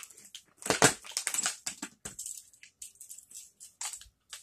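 Thin plastic packaging tray of a toy playset crackling and clicking as hands pry toy vehicles out of it, in a string of irregular crackles, loudest about a second in.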